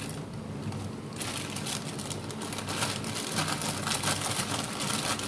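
Pieces of a dry instant noodle block being broken up and dropped into a steel pot, with the plastic noodle packet crinkling; irregular small clicks and rustling, over a steady low hum.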